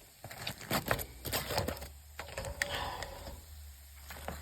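Light, scattered clicks and rustling of handling noise over a faint steady low hum.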